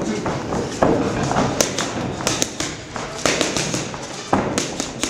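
Boxing gloves striking training pads held by a coach: a quick, irregular run of sharp slaps and thuds.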